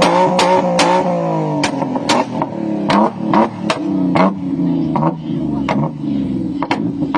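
A vehicle engine revving and dropping back in pitch, with loud sharp cracks, rapid at first and then more widely spaced.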